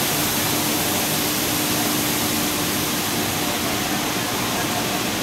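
PE/PP WPC decking profile extrusion line running: a steady, even rushing noise with a constant hum.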